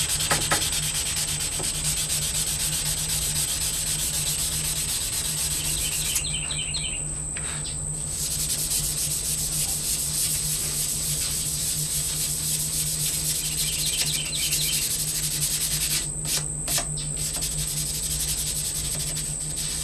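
Sandpaper rubbed back and forth by hand along a steel sword blade to buff it, stopping briefly twice, once a few seconds in and once near the end. A steady high insect drone runs underneath.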